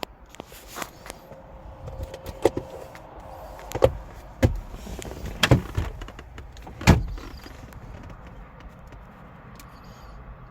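A run of about seven sharp knocks and clunks, irregularly spaced, loudest in the middle, then dying away to a quiet background.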